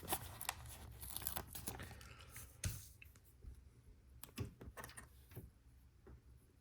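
A LEGO sticker being peeled off its backing sheet, with a quiet papery tearing and crinkling of the sheet for the first few seconds, then a few light clicks.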